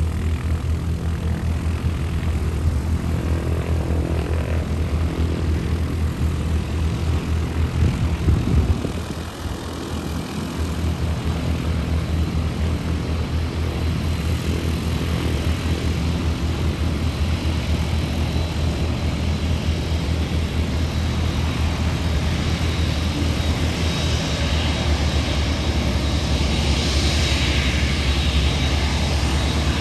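A UPS Boeing 747 freighter's four jet engines at taxi power, a steady whine over a rumble that grows brighter and louder in the last few seconds as the aircraft turns toward the listener. Wind buffets the microphone with a choppy low rumble throughout.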